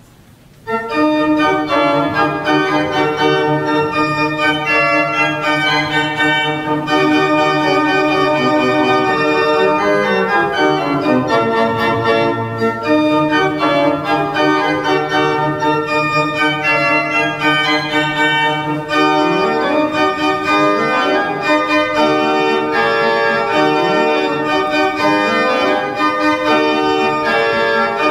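Martin Podkonický's 1751 baroque pipe organ playing a lively piece, with full held chords broken by quick rising and falling runs of notes; the music begins about a second in.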